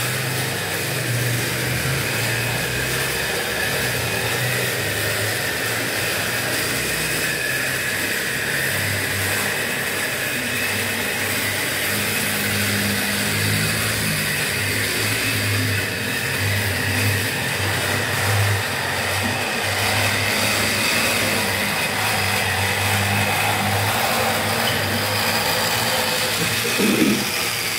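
Model trains running on a layout: a steady electric-motor whir with the rolling noise of wheels on the track.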